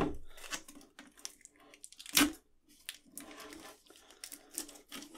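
Black tape being pulled off the roll and wrapped around a wooden dowel, with intermittent crinkling, scratchy handling noises and small clicks, a louder rip about two seconds in.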